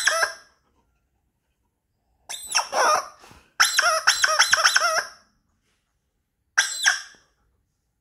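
Child's bicycle squeeze-bulb horn honking squeakily in short blasts: one at the start, a couple a few seconds in, then a quick run of about five honks a second, and one more near the end.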